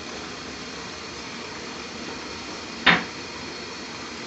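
Steady background hiss in a kitchen while oil heats in a large aluminium pot, broken by one sharp knock about three seconds in.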